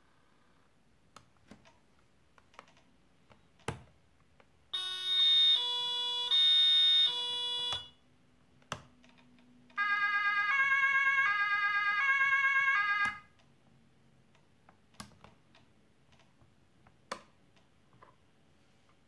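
Two-tone German emergency horn (Martinshorn) played by the model ambulance's Beier USM-RC-2 sound module: a burst of alternating high and low tones about five seconds in, then a second two-tone burst with a slightly warbling pitch about ten seconds in. Sharp single clicks sound now and then between the bursts.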